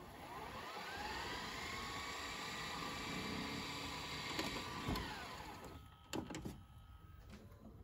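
Sony SLV-N51 VHS VCR rewinding a tape: a motor whine that rises in pitch over the first second and holds steady, then winds down about five seconds in as the stop button is pressed, followed by a few mechanical clicks from the tape transport.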